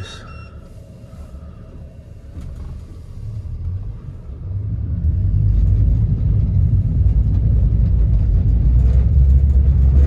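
Twin Yamaha 250 hp V6 outboards running as a low, steady rumble, pushing the boat sideways under joystick control. The rumble grows much louder about five seconds in as the engines put out more thrust.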